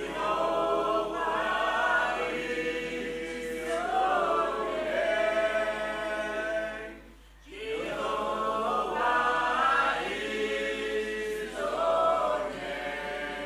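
A group of singers, men and women, singing together unaccompanied in two long phrases, with a short break about seven seconds in.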